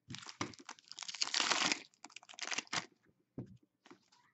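Foil wrapper of a hockey card pack crinkling and tearing as it is ripped open by hand, a dense crackle lasting nearly three seconds and loudest in the middle. A few light ticks follow near the end.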